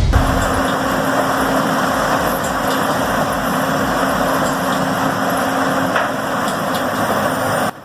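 Large engine-driven wood-processing machine running hard: a loud, steady engine-and-machinery noise with a constant hum, cutting off abruptly near the end.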